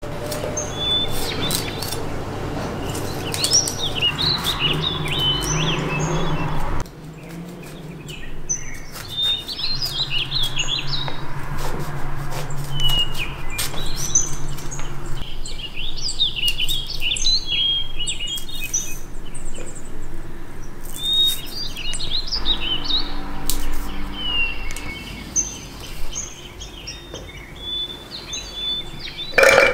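Small birds chirping throughout, with short clicks and crunches from a chef's knife cutting through a cauliflower head on a wooden board.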